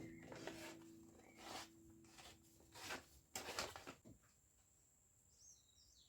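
Near silence: a low note fading out and a few faint knocks, then faint high chirps near the end.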